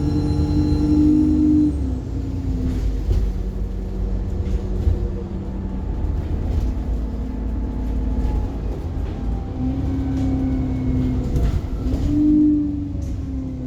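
Alexander Dennis Enviro bus running, a low engine drone with a whining tone that comes and goes and scattered clicks and rattles: the weird noises this bus is known for.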